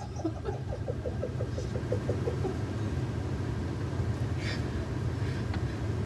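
Steady low hum, with a newborn baby's faint hiccup about four and a half seconds in. A quick run of faint little squeaks fills the first two seconds.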